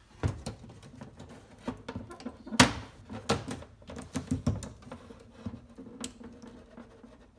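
Scattered sharp clicks and knocks of a plastic headlight lens and housing being worked apart by hand, with one louder knock about two and a half seconds in.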